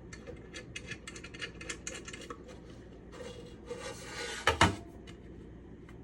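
Handling a stainless steel pan lid and its handle hardware: a run of light clicks and taps, then a scraping rub, then two sharp knocks in quick succession, the loudest sounds.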